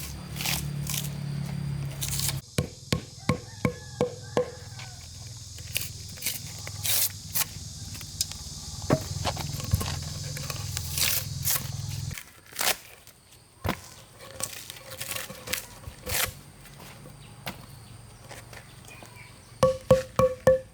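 A hand tool striking wood in quick series of sharp knocks, some with a short ring: a run of about eight blows early on, scattered single blows, and a fast run of about five near the end. A low steady hum sits under the first half and stops abruptly.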